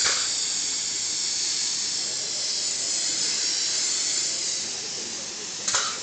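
Air-assisted airless spray gun fed by a Merkur 48:1 pump, spraying paint in a steady high hiss, with a sharp louder spurt near the end.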